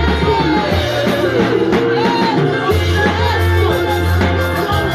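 Worship music playing, with voices singing over a sustained bass.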